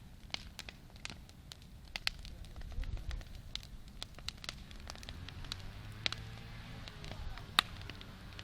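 Wood campfire crackling, with irregular sharp pops and snaps over a low rumble of the burning; the loudest pop comes near the end.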